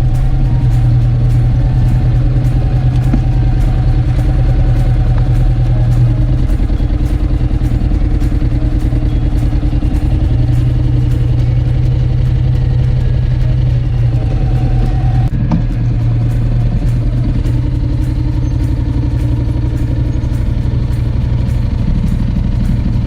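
Honda X-ADV motorcycle's parallel-twin engine running steadily while riding at an even pace, with the low engine note loud throughout.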